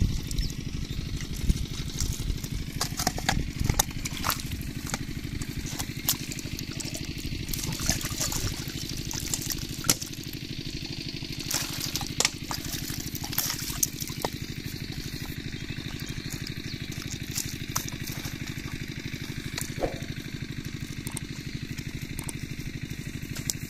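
Water splashing and dripping as a plastic basket of stinging catfish is handled and rinsed in shallow water, with sharp clicks and splashes, most of them in the first half. Under it runs the steady, fast chugging of an engine.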